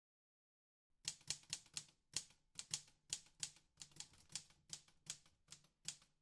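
Typewriter keys striking one at a time, a run of sharp clacks at an uneven pace of about three a second, starting about a second in.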